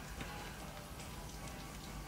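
Quiet room tone: a steady low hum under a light hiss, with one faint tick about a quarter second in.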